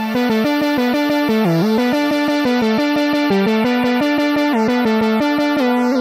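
Instrumental synthesizer music: a sustained keyboard tone steps through a melody over a fast, even pulse, with a brief downward pitch bend about a second and a half in.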